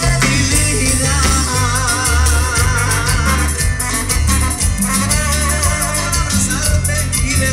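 Live Latin dance band playing loud through a PA system: heavy bass, a steady shaker and drum beat, and a wavering lead melody.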